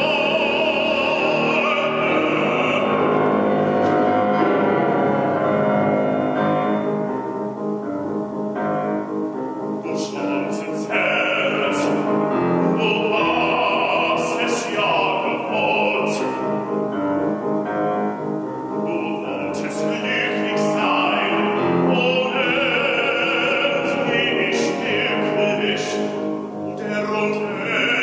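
Baritone singing a classical art song in full operatic voice with vibrato, accompanied by grand piano. The voice breaks off twice for a few seconds while the piano plays on.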